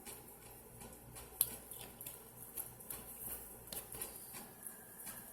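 Faint, scattered light clicks and taps of small steel lock-pick tools and tension wrenches being handled, with one sharper click about a second and a half in, over a low steady hum.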